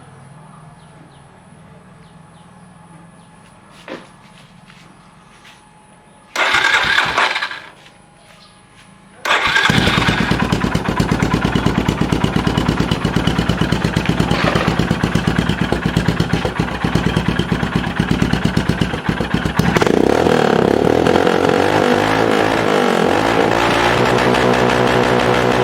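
Royal Enfield Himalayan's single-cylinder engine breathing through a Barrel Ghost II aftermarket exhaust. A short first burst of about a second and a half dies away, then a few seconds later the engine starts and settles into a loud, fast-pulsing idle. About twenty seconds in, the exhaust note turns heavier and stays so.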